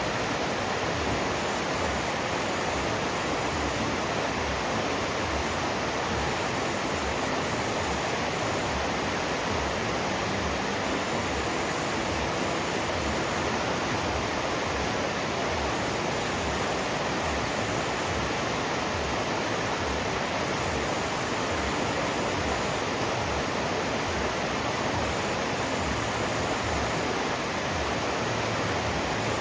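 River water rushing: a steady, even noise that does not change.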